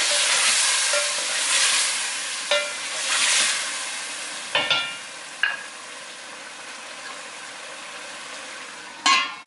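Chicken and tomato masala sizzling in oil in an aluminium pot while being stirred with a wooden spoon, with scrapes of the spoon against the pot. The stirring eases off about halfway and the pot is left sizzling more quietly, followed by a sharp clatter near the end. This is the bhuna stage, with the masala nearly fully fried.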